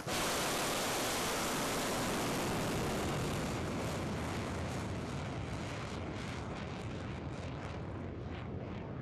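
Rocket motor of a ballistic missile launching from a rail car: a loud, steady rushing noise that starts abruptly, then thins and fades with a crackle as the missile climbs away.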